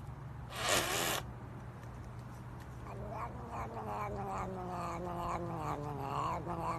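A cat's long, drawn-out yowl that slowly falls in pitch, with a pulsing quality, after a short burst of noise about half a second in.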